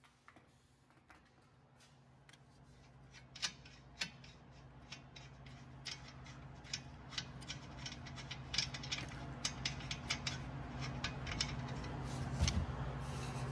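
Metal hand tools clicking and clinking in irregular runs, over a low steady hum that grows louder through the clip.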